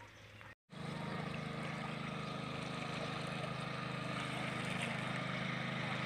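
Small boat's engine running steadily across open water: an even low drone that grows slightly louder. It comes in after a brief cut to silence about half a second in.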